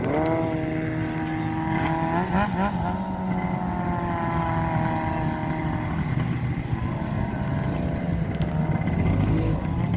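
A racing vehicle's engine revving up and held at high speed, its pitch wavering briefly about two seconds in, then sliding slowly down, over a steady lower engine drone.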